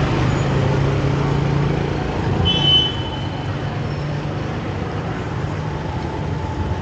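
A motor vehicle's engine running steadily amid street traffic noise, with a short high-pitched tone about two and a half seconds in.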